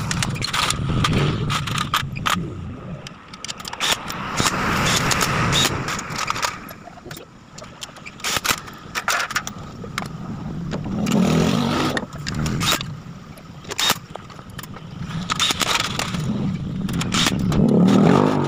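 Clicks and clinks of metal tools being handled on a scooter's engine case, over a low rumble that swells about eleven seconds in and again, louder, near the end.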